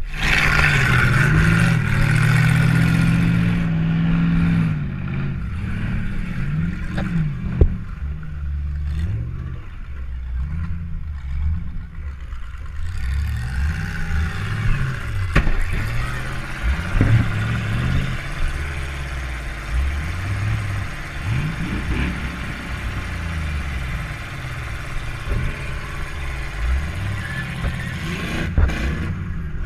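Demolition derby car engine revving up and down repeatedly, heard from inside the car, with a few sharp bangs of impacts along the way.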